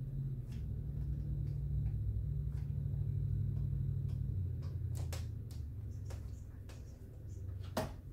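Light clicks and knocks of craft pieces being handled on a tabletop, the sharpest knock near the end, over a low steady rumble.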